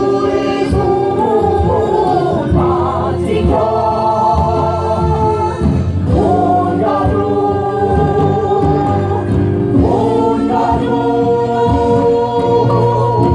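Live stage music: several voices singing held, wavering notes together over an instrumental accompaniment.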